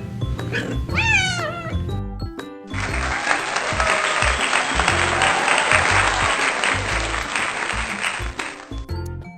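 A domestic cat meows once about a second in, over background music with a steady beat. Then, from about three seconds in until shortly before the end, a long stretch of applause plays and cuts off suddenly.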